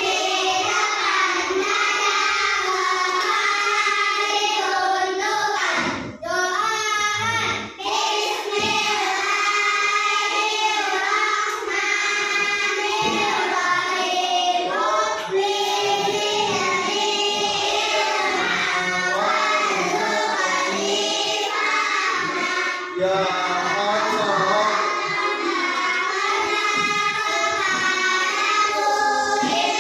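A group of children singing a song together in unison, without pause.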